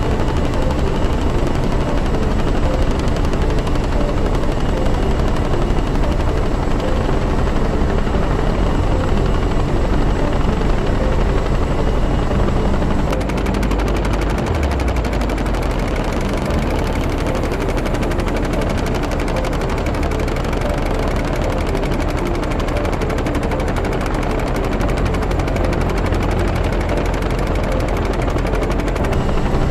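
Helicopter running close by, a loud, steady rapid chopping of rotor blades over turbine noise, shifting in tone about halfway through.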